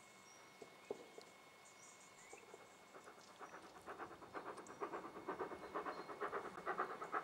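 Exhaust beat of an approaching steam locomotive: a quick, even chuffing that sets in about three seconds in and grows steadily louder. A few faint bird chirps come before it.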